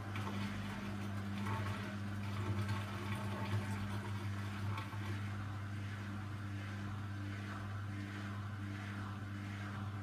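Hoover Dynamic front-loading washing machine tumbling a wash load in water: a steady motor hum with water sloshing and swishing in the drum.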